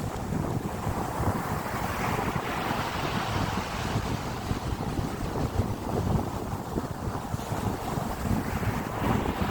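Wind buffeting the microphone: a continuous rumbling rush that swells in gusts a couple of times.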